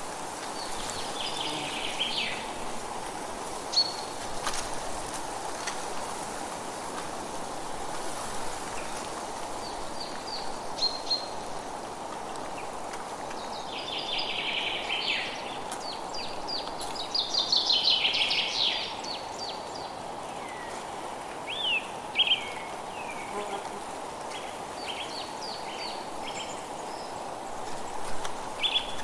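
Forest ambience: songbirds calling in bursts of quick chirps and trills, the busiest about two-thirds of the way through, over a steady background hiss.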